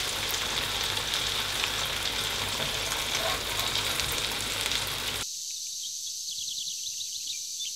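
Breaded chicken cutlets sizzling and crackling as they shallow-fry in butter and olive oil in a frying pan. About five seconds in, the sizzling cuts off, leaving a high hiss and a run of quick bird chirps.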